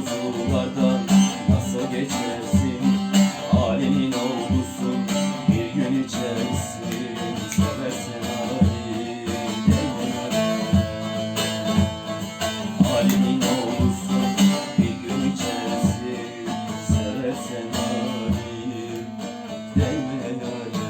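Music: a plucked string instrument strummed in a steady rhythm, playing an instrumental passage without singing.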